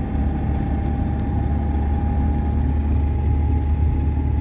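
Steady engine and road rumble inside the cab of a moving GAZelle van, with a faint steady whine over it.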